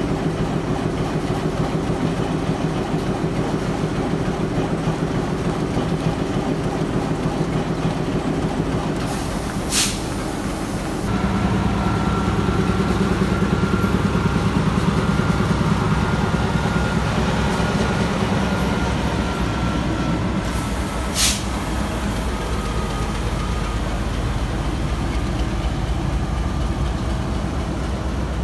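Class M4 diesel-electric locomotive, built by Montreal Locomotive Works, running with its pulsing "helicopter" engine beat. About eleven seconds in the engine gets louder and deeper as it takes power, and the train pulls away with its carriages rolling past. Two brief sharp hisses come about ten seconds apart.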